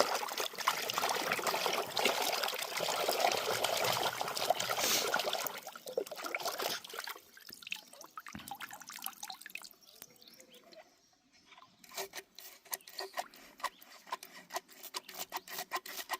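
Water trickling and splashing for about six seconds, then fading, with a quick run of sharp clicks in the last few seconds.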